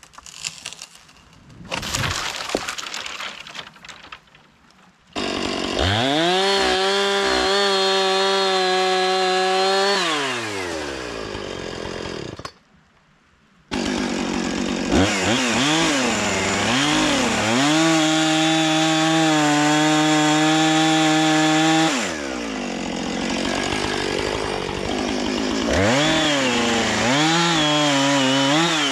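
Two-stroke Husqvarna chainsaw, after a few seconds of crackling noise. It is revved to full throttle and held at a steady high pitch for about five seconds, then drops back toward idle and briefly cuts out. It then revs up again in quick blips, holds full throttle for several seconds, eases off, and is blipped twice more near the end.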